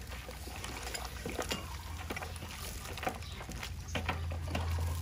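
Long metal ladle stirring soup broth in a large aluminium pot: liquid sloshing, with irregular clinks and knocks of the ladle against the pot. A steady low hum gets louder about four seconds in.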